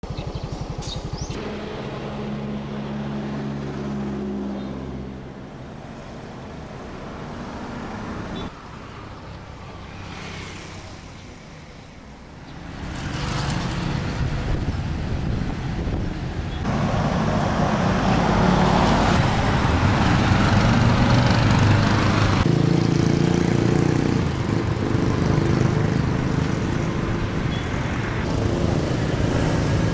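Road traffic: engines of passing cars and motorcycles running, with a steady engine hum early on and busier, louder traffic noise from about halfway. The background changes abruptly several times.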